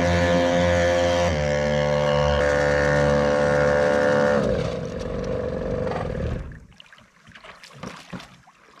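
Twin small two-stroke engines driving a homemade jet pump, running steadily at high revs. About four and a half seconds in they drop in pitch and fade away. Near the end, water splashes and sloshes.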